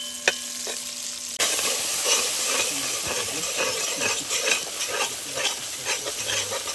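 A few ringing metal knocks on a pot, then about a second and a half in, food goes into hot oil and sizzles loudly, with a spoon scraping and stirring it in the pot.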